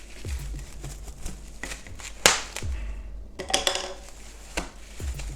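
Shortbread dough being wrapped by hand: the wrapping rustles and crinkles among scattered light taps, with one sharp snap a little over two seconds in.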